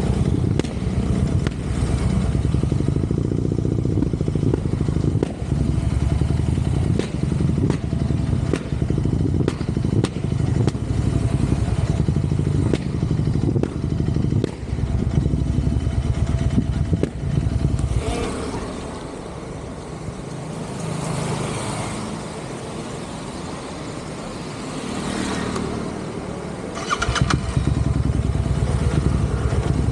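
Royal Enfield Interceptor 650's parallel-twin engine running on the move. About two-thirds of the way in, the engine note drops away for several seconds while a rushing noise swells and fades twice, then the engine comes back up near the end.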